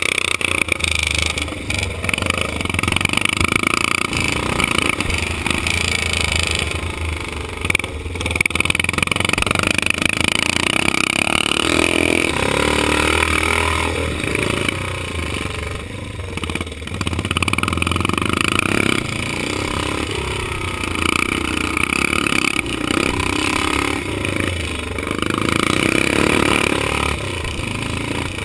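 Vintage motocross motorcycle engine heard from the rider's own bike, revving up and dropping back over and over as the throttle is worked around the dirt track.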